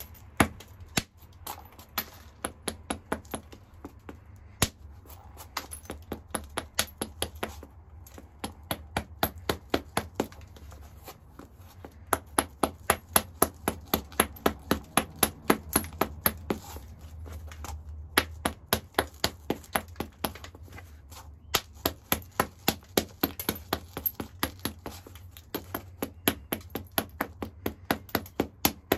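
A round hammerstone tapping the edge of a hornstone biface in quick, light strikes, about three a second, in runs broken by short pauses.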